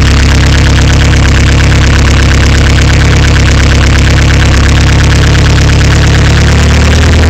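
Nissan CA18DET turbocharged 1.8-litre four-cylinder running steadily, with a fast, even rattle over the engine note. The owner cannot tell what is making the rattle.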